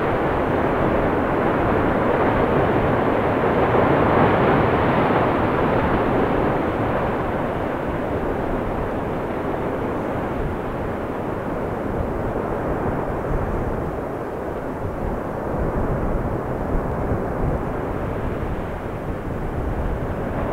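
Erupting volcano giving off a steady, loud rushing roar during a lava-fountaining burst, slowly easing off after the first few seconds.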